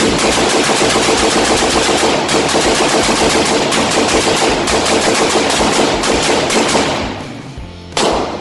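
AR-15 pistol fired in rapid fire: a long, fast string of gunshots lasting about seven seconds, then a short burst near the end.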